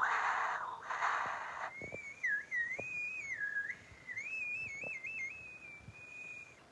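A breathy, fluttering hiss for the first second or so, then one long warbling whistle for about five seconds, its pitch stepping up and down like a birdcall.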